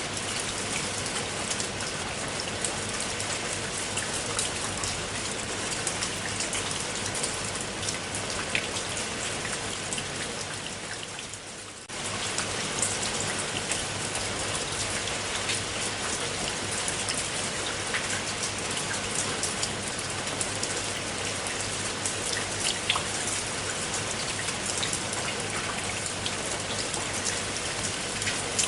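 Steady rain falling, with scattered single drops striking close by. About twelve seconds in the rain fades down for a moment and then cuts back in suddenly at full level.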